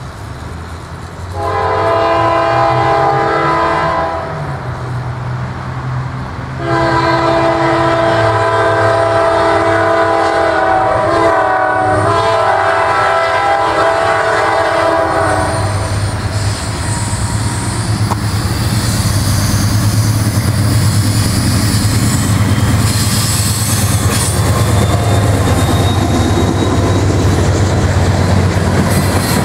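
Norfolk Southern GE C40-9W diesel locomotive blowing its air horn chord at a grade crossing: a blast of about two and a half seconds, then a long blast of about nine seconds. As the horn stops the locomotive's diesel engine rumbles by, followed by freight cars rolling past with clickety-clack over the rail joints.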